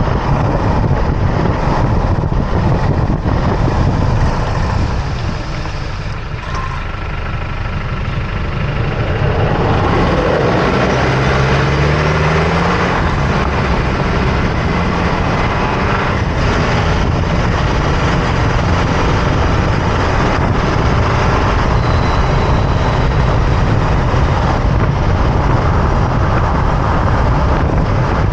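Loud, steady road and wind noise of a Toyota Tacoma pickup driving, picked up close under its front end. The noise eases off for a few seconds about five seconds in. Then the truck's turbocharged four-cylinder engine is heard pulling, its pitch rising as the truck speeds up, before the rushing noise fills in again.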